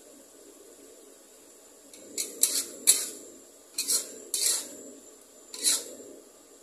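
Metal spatula scraping and clanking against a metal wok while stirring a stir-fry: about seven sharp strokes in small groups, starting about two seconds in.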